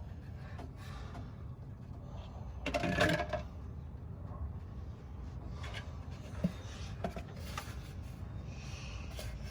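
Small hard parts being handled while fitting a new fuel filter: a clatter with a short ringing clink about three seconds in, then a few light clicks and rubbing, over a low steady hum.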